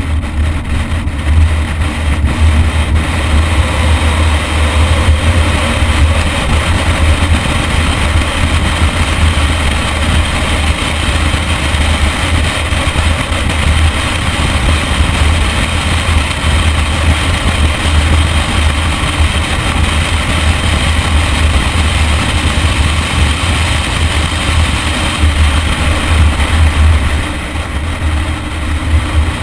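BMW M3 driven at speed on a race track: engine and road noise under a heavy, continuous wind rumble on the microphone, easing briefly near the end.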